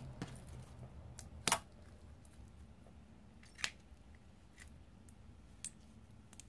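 Jelly-cube slime squeezed and poked by fingers, giving a few sharp clicks and pops at uneven intervals, the loudest about a second and a half in.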